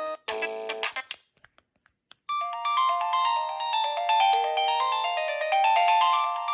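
Samsung A640 preloaded ringtones: one melody stops just after the start and a short snatch of notes plays for under a second. After a near-silent gap with a few faint clicks, a new ringtone melody of quick stepping notes starts about two seconds in.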